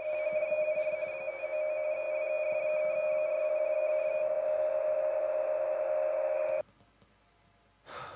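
A steady, piercing electronic ringing tone over a hiss, with a fainter higher tone warbling in small steps above it, cutting off abruptly about six and a half seconds in. It is the film's 'tinnitus' sound effect, the mysterious sound that sweeps the world.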